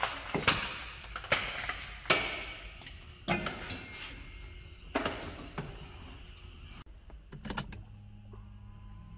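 Scattered knocks, clicks and a key jangle, then a steady low hum that begins about three quarters in as the Hyundai Tiburon's ignition is switched on, just before the engine is cranked.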